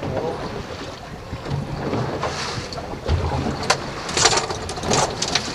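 Wind buffeting the microphone over the low running of a small fishing boat trolling under outboard power, with several sharp knocks and clatters in the second half.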